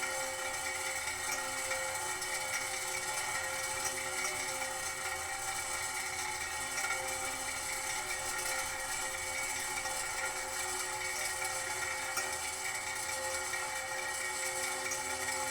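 Clockwork mechanism running steadily, resting on an aluminium cable spool that rings along with it in several steady tones, a busy patter a bit like rain on a tin roof.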